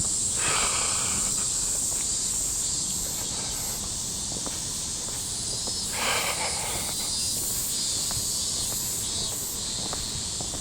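Cicadas buzzing steadily at a high pitch, with faint footsteps on pavement underneath.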